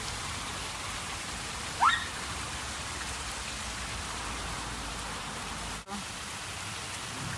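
Tiered fountain splashing steadily, its water pouring off the tiers into the basin. A brief rising squeak comes about two seconds in.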